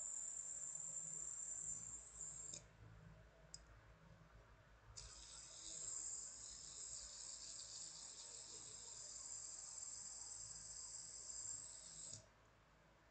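Knock-off fidget spinner's bearing whirring with a steady high-pitched buzz while it spins. It stops about two and a half seconds in, starts again about five seconds in when the spinner is spun once more, and cuts off about twelve seconds in as the hand stops it.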